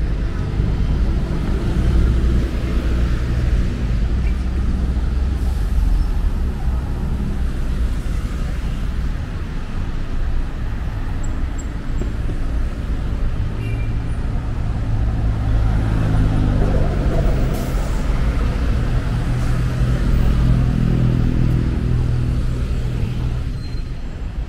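Road traffic noise, with vehicle engines running close by. A steady low engine hum comes in more strongly about halfway through.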